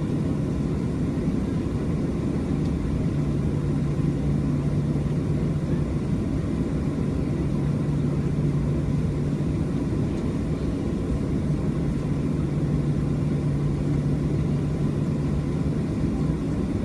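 Steady low drone of a Boeing 737's CFM56 turbofan engines heard from inside the passenger cabin, an even rumble with a constant low hum.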